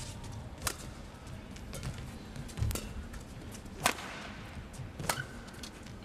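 Badminton rally: rackets striking the feather shuttlecock in four sharp cracks, spaced a second or two apart.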